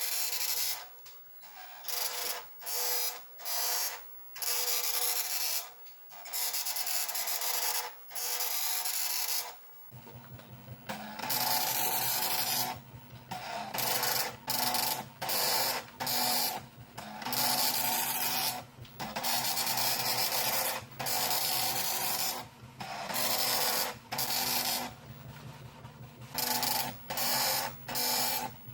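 Philips NMS 1421 7-pin dot matrix printer printing a listing line by line. The print head chatters in passes of about half a second to two seconds, with short gaps between lines. From about ten seconds in, a lower steady drone runs under the passes.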